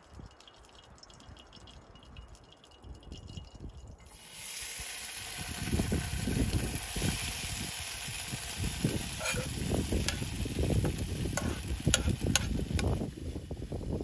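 Noodles tipped into a hot frying pan on a portable butane camp stove, sizzling steadily from about four seconds in, after a few seconds of faint quiet. Sharp clinks and low knocks of pan and spatula come through the sizzle as the noodles are stirred.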